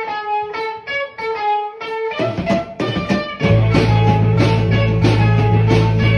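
Guitar music: a quick figure of plucked notes, filled out by more instruments about two seconds in and joined by a heavy, much louder bass about three and a half seconds in.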